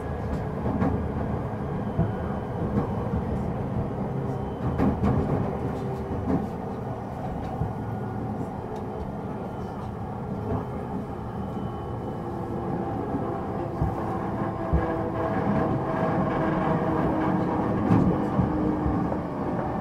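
Running sound from inside a Tokyo Waterfront Railway 70-000 series electric train with Mitsubishi GTO-VVVF inverters: a steady rumble of wheels on rail with scattered clicks. In the second half, steady motor and inverter tones come up over the rumble.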